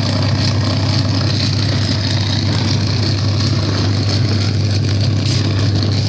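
Homemade compressor prototype running: a loud, steady low hum with a hiss of air above it.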